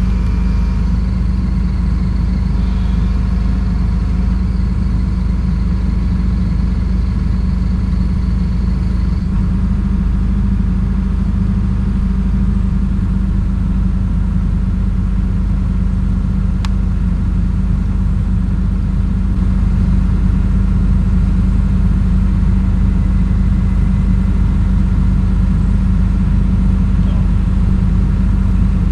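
An engine running at steady speed, slightly louder from about two-thirds of the way through.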